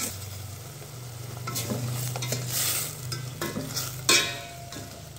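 Eel and seasonings sizzling in oil in a stainless steel pot while a spoon stirs and scrapes through them, over a low steady hum. A sharp knock against the pot comes a little after four seconds in.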